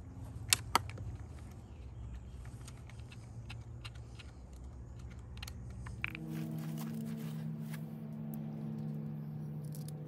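Small metallic clicks and rattles as a winch cable's terminal is fitted onto a tractor battery's negative post, with two sharp clicks just under a second in. A steady low hum starts about six seconds in.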